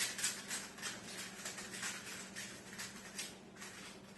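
3x3 Rubik's cube being scrambled by hand: the plastic layers turning in quick, irregular clicks and rasps, several a second.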